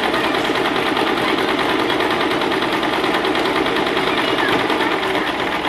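Electric household sewing machine running steadily at speed, its needle stitching through thick woven cotton cord in a fast, even run of strokes.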